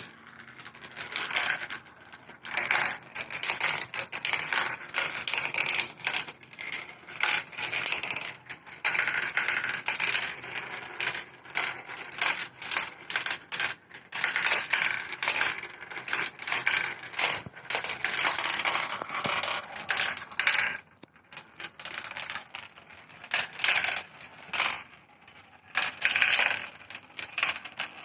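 Many marbles rolling and clattering through a marble run, a dense stream of irregular clicks and rattles that starts suddenly and keeps going, rising and falling in bursts.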